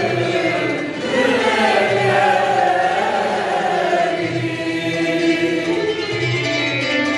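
A mixed choir of men's and women's voices singing together in held chords that move slowly in pitch.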